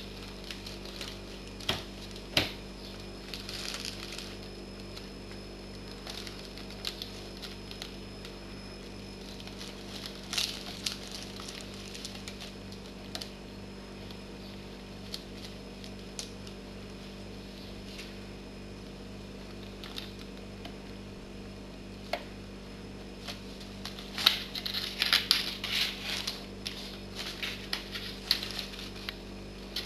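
Clear plastic bag crinkling and rustling in short bursts as a cat moves through it, with a long, busy stretch of crinkling near the end.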